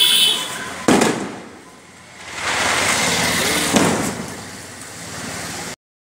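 Firecrackers going off: three sharp bangs with a short echo, at the start, about a second in and near four seconds, over a crackling hiss. The sound cuts off suddenly near the end.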